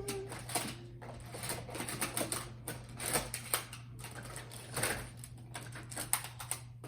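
Magna-Tiles magnetic plastic building tiles clicking and clacking as they are picked through and snapped together, a string of irregular sharp clicks.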